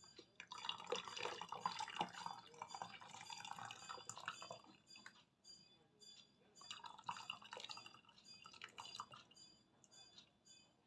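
Liquid pouring and splashing into a glass in two separate pours, the first about four seconds long and the second about three.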